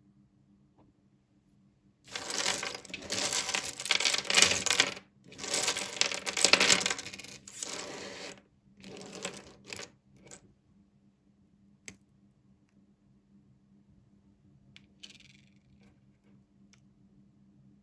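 Miniature toy pieces and their packaging being handled: three bursts of rustling and rattling of a few seconds each, then one sharp click and a faint brief rustle.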